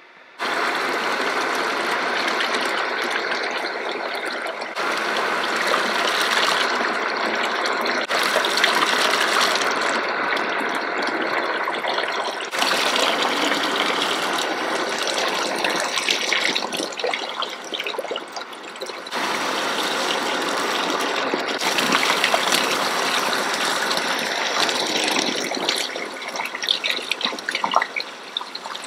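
Water streaming and splashing steadily from a sprayer over hair during a salon hair wash, with abrupt changes in level at several points and scattered small splashes near the end.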